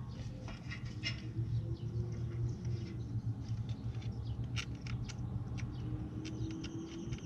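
Quarter-inch Matco indexable ratchet clicking in short, irregular runs as a bolt is worked. A steady low hum runs underneath.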